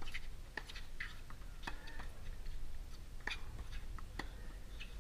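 Tennis rally on a hard court: sharp pops of the ball being struck by racket strings and bouncing on the court, coming at irregular intervals.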